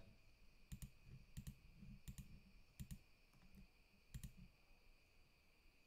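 Faint computer mouse clicks, mostly in quick pairs, coming about every two-thirds of a second and thinning out after about four seconds, over a faint steady high-pitched hum.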